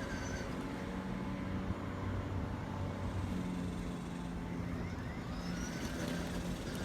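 Kobalt brushless battery-powered self-propelled lawn mower running steadily with a low, even hum while cutting grass.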